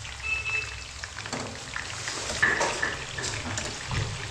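Food sizzling in a hot pan, a steady hiss with a few light clicks in the second half.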